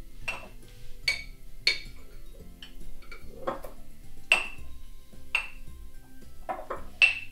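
Metal spoon clinking against a glass jar while jelly is spooned into overnight oats: a series of short, bright, ringing clinks about a second apart, the loudest about four seconds in and near the end. Background music plays underneath.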